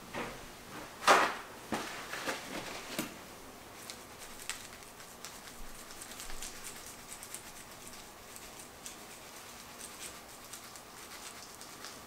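A loud knock about a second in and a few smaller clicks, then faint, fine crackling as seasoning is dispensed from a hand-held spice container over raw goose meat strips on a plastic cutting board.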